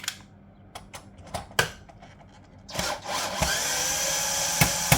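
A few handling clicks and knocks, then a cordless drill starts about three seconds in, its motor rising in pitch as it spins up and then running steadily, with a couple of sharp clicks near the end.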